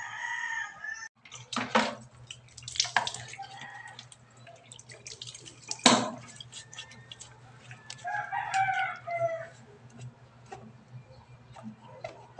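A rooster crowing, cut off abruptly after about a second. Then a chayote is washed in a stainless-steel sink: scattered knocks against the metal, the loudest about six seconds in, with water dripping, and a second falling rooster call at about eight seconds.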